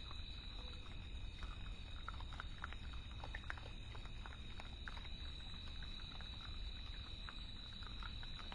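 Faint, scattered short squeaks and grunts from wild hogs inside a trap pen, heard through a remote trap camera's microphone over a low rumble and a steady high electronic whine.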